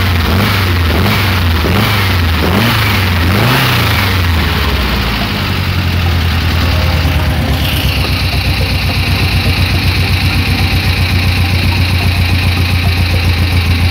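Air-cooled 1915cc VW flat-four engine of a Porsche Speedster replica, revved up and down several times and then settling into a steady, evenly pulsing idle. A higher steady whine joins about eight seconds in.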